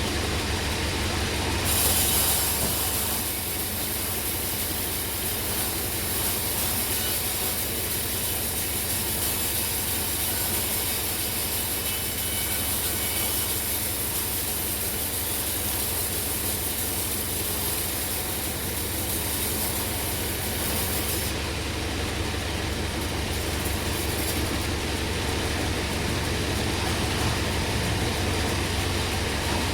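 Sawmill blade cutting through a log of hard bongkeng wood over the steady drone of the mill's motor. The high hiss of the cut starts about two seconds in, stops about two-thirds of the way through, and comes back more weakly a few seconds later.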